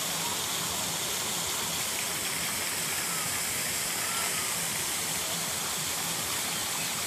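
Steady rushing, hissing outdoor background noise, even throughout. A few faint short whistles come about two to four seconds in.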